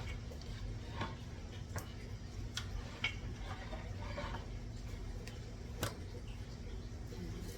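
Scattered light clicks and taps of things being handled in a kitchen, over a low steady hum.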